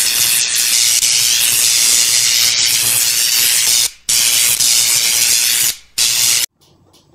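A loud, steady hissing noise, strongest in the high range, that drops out twice for a moment and cuts off suddenly near the end.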